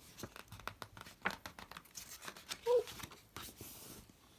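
A paper picture-book page being turned by hand: paper rustling and crinkling with a run of small clicks, then a brief swish as the page slides over near the end.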